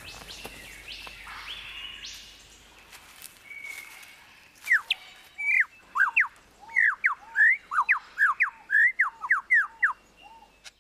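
Superb lyrebird singing. After some softer forest bird calls, a fast run of loud, clear whistled notes sweeping up and down starts about four and a half seconds in and runs on until near the end.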